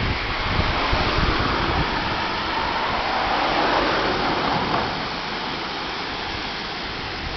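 Rushing water of a river swollen by a typhoon, a steady roar that swells through the middle and eases near the end.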